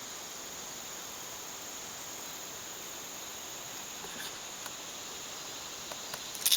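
Steady high-pitched chirring of an insect chorus, with a couple of sharp clicks near the end.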